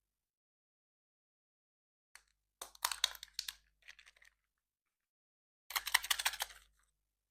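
Surprise egg packaging being handled: two bursts of rapid crackling clicks, the second about a second after the first ends.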